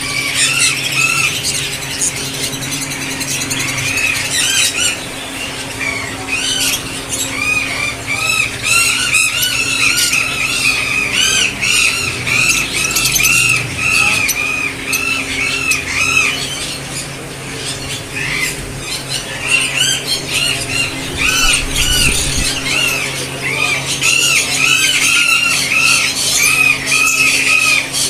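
Many caged parrots and parakeets screeching, short rising-and-falling calls overlapping several times a second, with a steady low hum underneath.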